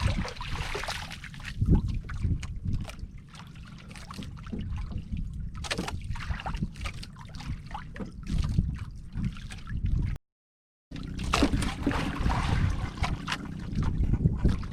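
Water sloshing and lapping against a small fishing boat's hull, with scattered knocks and a low wind rumble on the microphone. The sound cuts out for a moment about ten seconds in.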